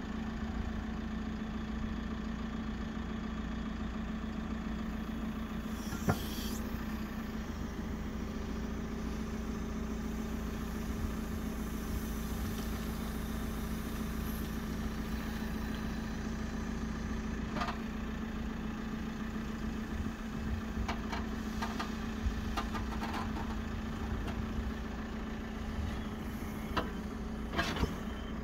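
JCB backhoe loader's diesel engine running steadily while the backhoe arm digs. A few sharp knocks break through, the loudest about six seconds in and a small cluster near the end.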